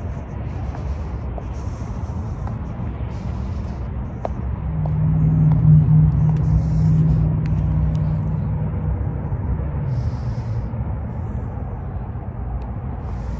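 Steady low outdoor rumble, with a motor vehicle's hum swelling and fading in the middle as it passes.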